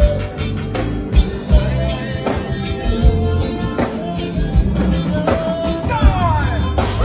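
Band music with drums and bass, and a sliding run of notes about six seconds in.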